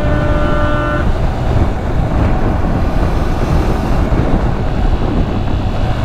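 Motorcycle riding noise: wind rushing over the microphone together with the KTM 390 Adventure's single-cylinder engine running at a steady cruising speed. A steady pitched tone sounds over it and stops about a second in.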